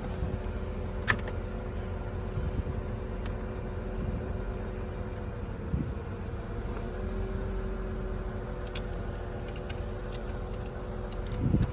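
Steady low mechanical hum with two faint steady tones, broken by a few short sharp clicks of small metal hardware, screws and nuts, being handled.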